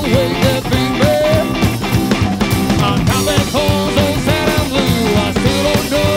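Live rockabilly/rhythm-and-blues band of harmonica, electric guitar, double bass and drums playing an instrumental passage: a lead melody bending between notes over a steady drum beat and walking bass.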